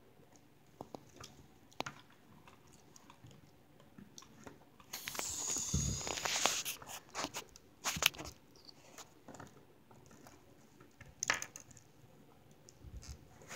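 Handling noise from plastic action figures being moved and set down on a wooden table: scattered small clicks and knocks, a rustling stretch in the middle, then a few sharper clicks.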